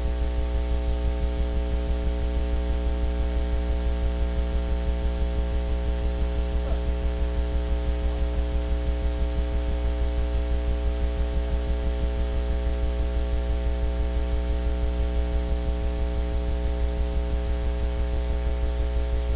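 Loud steady electrical mains hum and buzz, a low drone with a stack of steady overtones above it, pulsing quickly and evenly without change.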